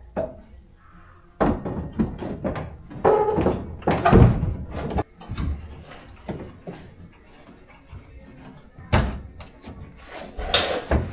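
Irregular thunks, knocks and scraping of an aftermarket over fender being pushed and tapped against the car body by hand while it is test-fitted. The loudest knocks come about four seconds in, with two more sharp ones near the end.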